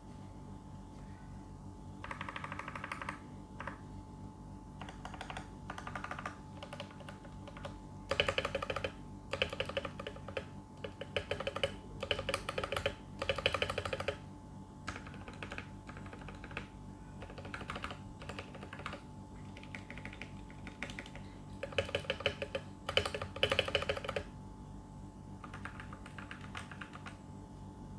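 Typing on a TKL mechanical keyboard with lubed Outemu orange tactile switches and lubed stabilizers, with keys bottomed out on each press. The clicking comes in bursts, fastest and loudest about a third of the way in and again near the end, with sparser keystrokes in between.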